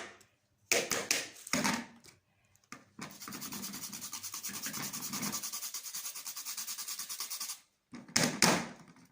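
White turnip being grated: a couple of hard separate scraping strokes, then about four and a half seconds of fast, even grating strokes, then two more loud strokes near the end.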